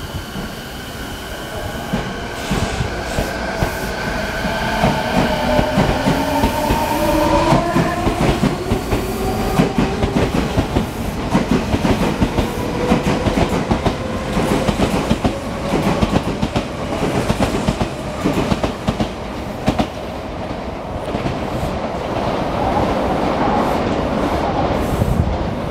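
Odakyu 4000 series electric train pulling away from the platform. The inverter and traction motors whine in several tones that rise in pitch as it accelerates over the first ten seconds or so. The wheels keep up a dense clatter over the rail joints as the cars pass.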